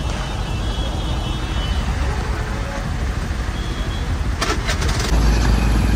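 Slow car traffic: a steady low engine and road rumble. A quick cluster of clicks comes about four and a half seconds in, and the low rumble grows louder from about five seconds on.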